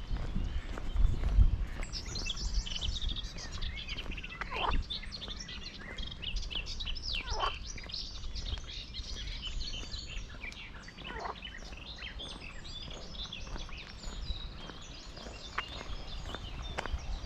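Birds singing: a busy chorus of quick high chirps that thins out after about ten seconds, with three long falling whistles spread through it. Low thuds of footsteps underneath in the first two seconds.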